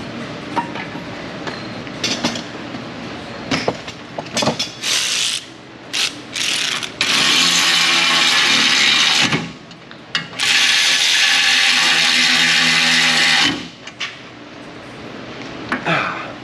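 Cordless power ratchet driving in a brake caliper bracket's mounting bolts: a few short bursts, then two steady runs of about two and three seconds, with clinks of the socket and bolts being handled around them.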